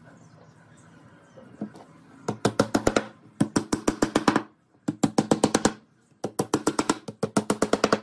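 Wooden mallet rapidly tapping wooden dowel pins into a wooden frame: quick runs of sharp wooden knocks, about ten a second, in four bursts starting about two seconds in.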